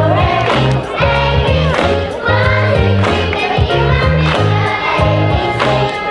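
A choir of adult and children's voices singing together over amplified backing music, with low bass notes held in steady blocks.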